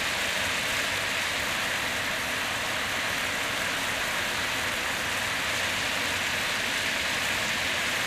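Fish sizzling as it is stir-fried in a pan: a steady, even hiss of frying oil that sounds like rain.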